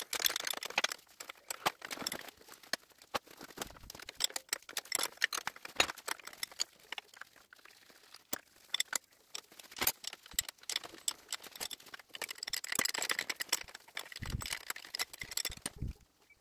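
Spanner and steel engine parts clinking and tapping as the rocker gear and push rods are taken off a Dorman 2RB diesel's cylinder head: scattered metallic clicks, busier near the start and again towards the end.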